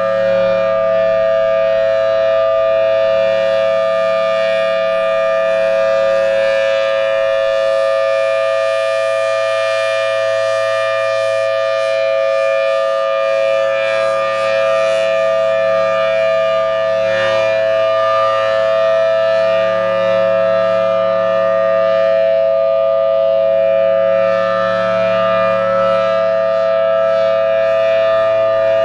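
Federal Signal Thunderbolt 1000T outdoor warning siren sounding the full-alert signal: one loud, unbroken tone held at a steady pitch, swelling and fading gently in loudness.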